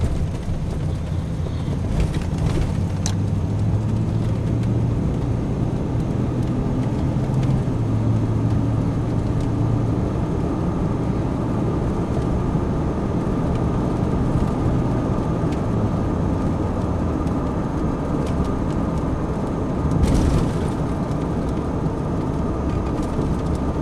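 A car driving, heard from inside the cabin: a steady low engine hum with tyre and road noise, and a brief louder rumble about twenty seconds in.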